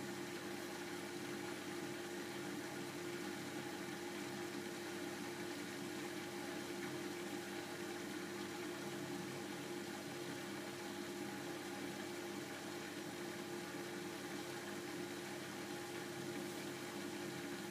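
Front-loading washing machine running mid-wash: a steady hum with one constant tone.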